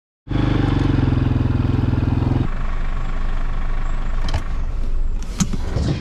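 A motor vehicle's engine running close by, its sound changing abruptly about two and a half seconds in to a lower, rougher running. A couple of sharp knocks come near the end.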